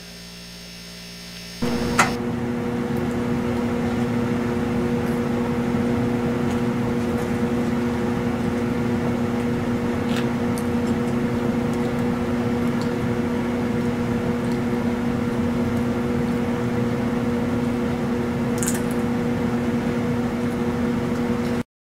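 Steady hum of a fireplace wood-stove insert's blower fan, starting suddenly about two seconds in, with a few faint crackles from the burning logs.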